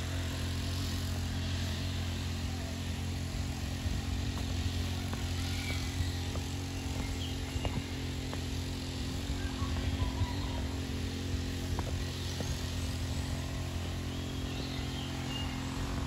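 A steady low motor hum, engine-like and unchanging, with a few faint high chirps now and then above it.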